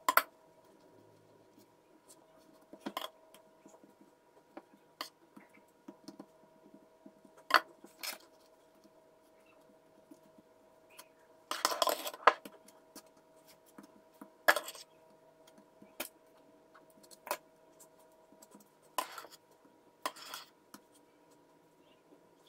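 Metal spatula scraping buttercream out of a ceramic bowl and tapping against the bowl and the plastic cutting board: short scrapes and clicks at irregular intervals, the longest scrape about halfway through. A faint steady hum runs underneath.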